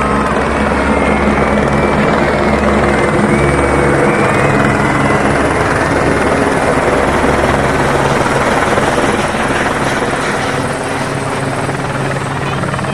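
An aircraft running loud and steady: a rushing roar over a steady low hum. The lowest part of the hum drops away about four seconds in, and the sound eases slightly near the end.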